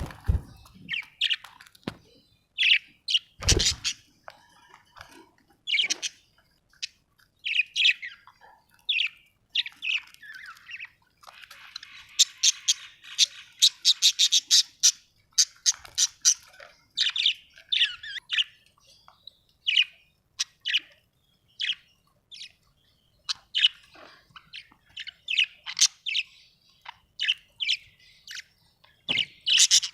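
Budgerigars chattering: short high chirps and squawks in quick, uneven series, thickening into a dense run of rapid chatter midway. A single low thump comes a few seconds in.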